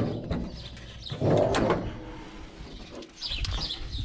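The steel hood of an old Ford F-600 truck being unlatched and raised by hand: a clunk at the start, then a rough metal scraping noise about a second in as the hood lifts on its hinges.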